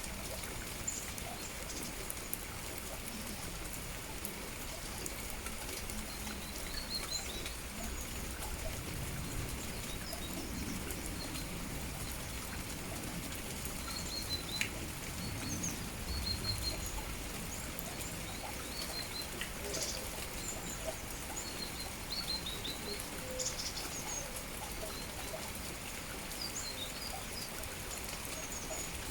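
Steady rain falling, with small birds chirping in short, high calls throughout.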